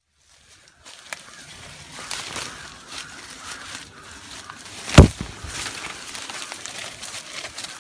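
Rustling and crackling of footsteps and hands moving through undergrowth and dry leaf litter, with one loud thump about five seconds in.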